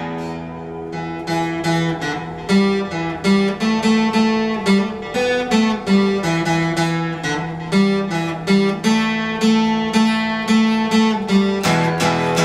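Acoustic guitar playing an instrumental break in a song: a run of picked notes over a ringing low note.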